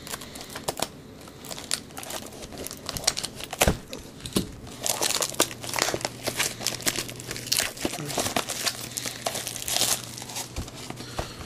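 Plastic shrink wrap crinkling and tearing as a trading card hobby box is unwrapped: irregular crackles and snaps, busiest in the second half.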